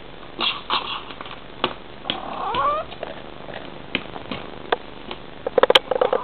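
Bengal cat giving one short call that rises and then falls in pitch about two seconds in, among a few soft clicks. Near the end comes a quick run of sniffing.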